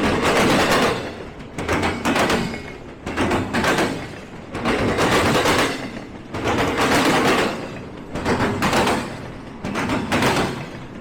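Passing freight train's wheels banging over the track in repeated clusters of sharp knocks, about one cluster every one and a half to two seconds as each car's trucks go by.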